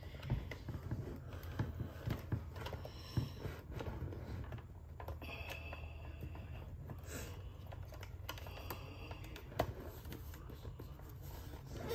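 Small irregular clicks and taps of hard plastic as fingers press and work a Cricket talking doll's cassette door, trying to seat its hinge prongs in their holes.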